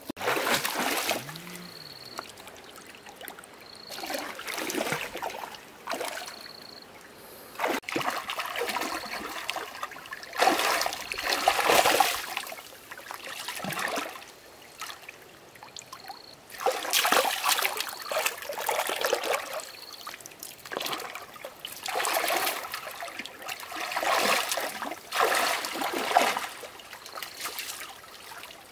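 Water splashing and trickling in irregular surges that come and go every second or two.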